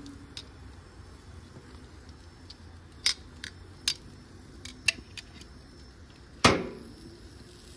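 Metal tongs and utensils clicking and clacking at a gas grill: a scatter of sharp clicks, then one loud clank with a brief ring near the end.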